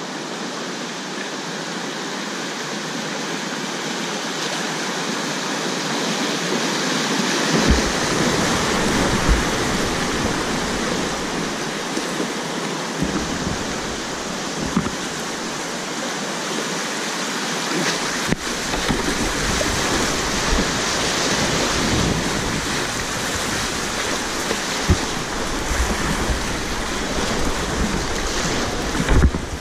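Whitewater river rushing over rapids, a steady wash of water noise heard close from a kayak. From about eight seconds in, low rumbling and short knocks and splashes join it as the boat runs the rapid.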